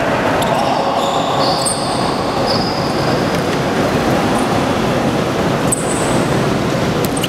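Sneakers squeaking on a hardwood basketball court, several short high-pitched squeals over steady, loud noise in the gym hall.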